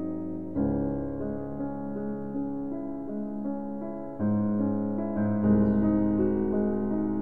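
Background piano music: slow sustained chords, with a new chord entering about half a second in and another about four seconds in.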